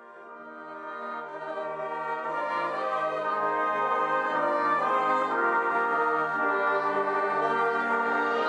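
Wind band playing with the brass to the fore, clarinets and trombones among them, in held chords that swell from soft to full over the first three seconds and then hold steady.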